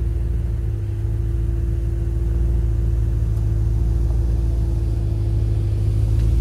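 Ram Power Wagon's 6.4-litre HEMI V8, breathing through a Magnaflow muffler, running low and steady as the truck crawls over rocks, growing slowly louder as it comes closer.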